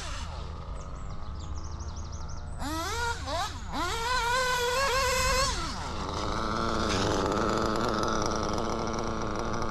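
Alpha 5P .21 five-port nitro engine in an RC buggy, revving up and down as the car accelerates and lets off. It rises to a high whine held for a couple of seconds in the middle, then drops back. The owner thinks the tune may be a bit rich on the high-speed needle.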